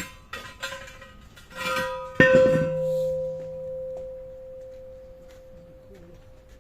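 A few light metallic knocks, then a hard strike on metal about two seconds in that rings on in a clear steady tone, slowly fading over several seconds.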